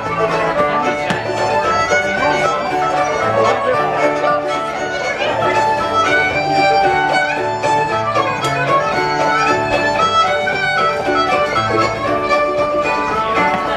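Fiddle-led contra dance tune with string accompaniment, playing steadily without a break.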